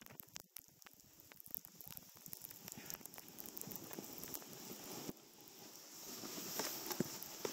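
Snowboard sliding and turning over fresh snow: a scraping hiss full of small crackles and ticks, which grows louder in the second half.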